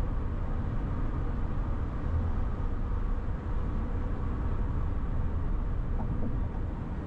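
Low, steady rumble of tyre and road noise with engine drone, heard from inside a car cruising on the freeway at about 120 km/h.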